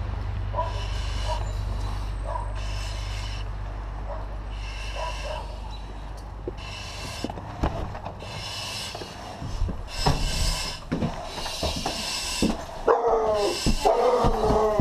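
Rhythmic hiss of a firefighter breathing through a breathing-apparatus mask, a breath every second or so, with knocks and footsteps in the middle. About two-thirds of the way through a dog starts barking repeatedly.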